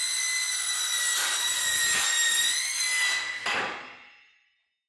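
Cordless saw cutting a galvanised steel drywall stud profile: a steady high motor whine over the rasp of the blade through the metal, fading out about three seconds in.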